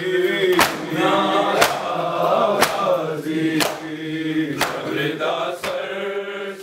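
A group of men chanting a noha in unison while beating their chests in time (matam), with a sharp slap about once a second. The sound fades out near the end.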